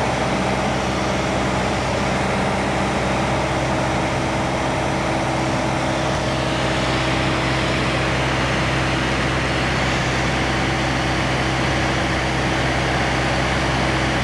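Small plane's engine and propeller droning steadily, heard from inside the cabin, with a constant low hum and rushing air.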